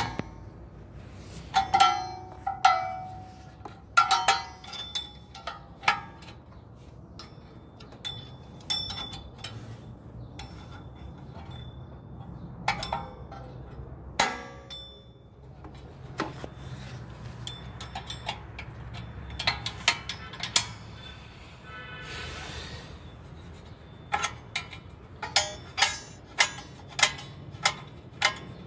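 Steel brake hardware and hand tools clinking and tapping on a rear drum-in-disc handbrake assembly during a handbrake shoe change: irregular clusters of sharp metallic clinks, some ringing briefly, with a short rasping rattle about two-thirds through and a quick run of taps near the end.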